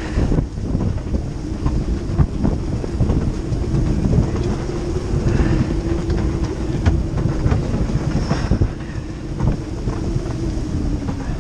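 Wind buffeting the microphone over the rush and slap of waves breaking along a heeled sailing yacht's hull.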